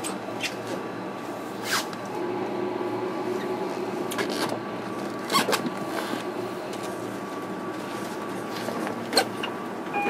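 JR Kyushu 305 series electric train standing at a platform, its on-board equipment giving a steady hum with a faint high tone. A few sharp clicks and knocks break in, one about five seconds in.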